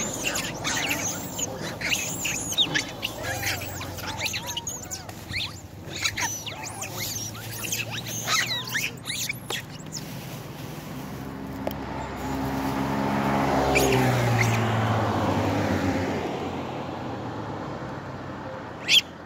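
Long-tailed macaques giving many short, high squeaks and chirps for about the first half. A passing vehicle then swells and fades, its engine note dropping in pitch as it goes by, and a single sharp squeal comes near the end.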